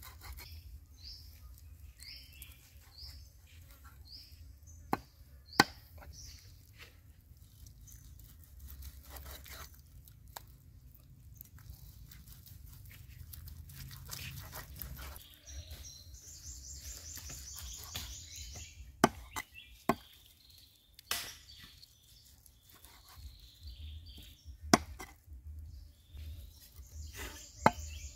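A few sharp, widely spaced knocks of a knife chopping on a wooden board, over birdsong. A bird repeats a short falling chirp about once a second near the start, and a fast high trill comes twice, about midway and near the end.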